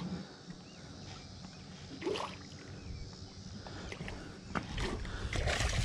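Faint water lapping and wind noise around a small boat, with a few soft ticks and knocks, the low rumble growing louder toward the end.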